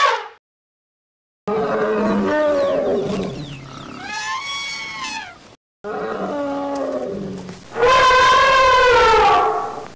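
Woolly mammoth sound-effect calls, twice: each is a low rumbling growl that turns into a high trumpeting blast, like an elephant's. The first trumpet rises and falls in pitch; the second is louder and longer.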